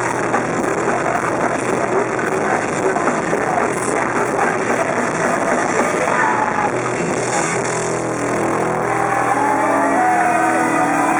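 Punk rock band playing live: distorted electric guitars, bass guitar and drums, with held notes standing out from about eight seconds in.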